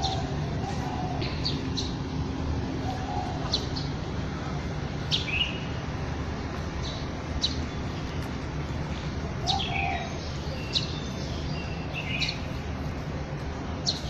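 Birds chirping in the trees: short, sharp calls that sweep quickly down in pitch, one every second or two, over a steady low background rumble.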